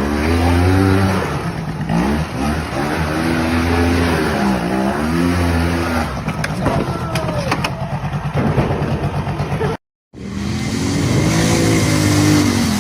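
Off-road vehicle engine revving up and down over and over, the pitch rising and falling in waves. The sound cuts out for a moment about ten seconds in, then an engine revs again in the same way.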